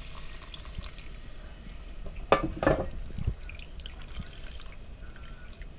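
Coconut milk pouring and trickling through a small plastic strainer into a metal pot as the grated coconut is squeezed by hand. Two short sharp louder sounds come a little over two seconds in.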